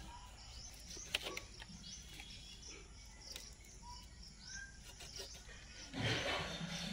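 Quiet outdoor ambience with a few short bird chirps and scattered soft clicks as raw green bananas are handled on the bunch. About six seconds in there is a brief rustling scrape, the loudest sound, as a knife cuts a banana from the stalk.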